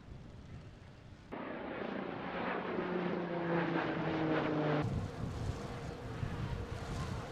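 A vehicle or aircraft passing, its engine drone slowly falling in pitch over a rushing roar. The sound changes abruptly twice, ending in a lower, rougher rumble.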